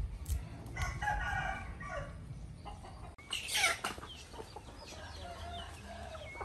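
A rooster crows once, starting about a second in, over a low rumble. About halfway through there is a short, loud, raspy burst.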